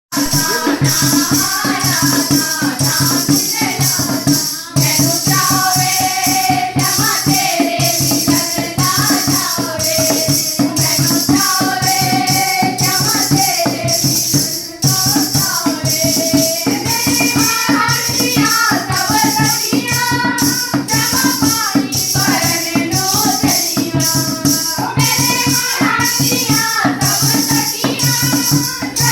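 Song with a voice singing a wavering melody over a fast, steady percussion beat with jingling rattles, like a tambourine.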